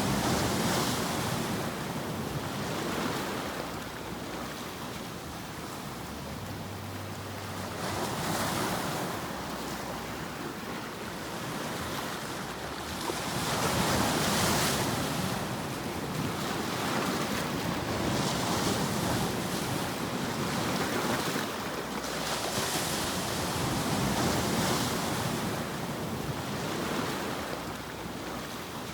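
Ocean surf: a steady rush of breaking waves that swells and falls back every four to six seconds.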